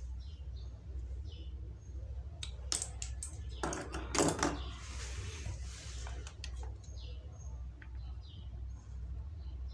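Sharp clicks and crunches from a thin plastic tube being cut with a small blade, loudest about four seconds in, followed briefly by a rustle. A steady low hum runs underneath.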